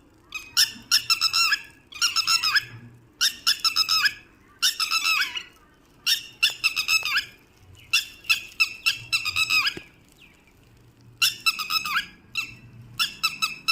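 Pet bird giving harsh squawking calls in repeated short bursts, each a rapid cluster of notes, with a brief pause about ten seconds in.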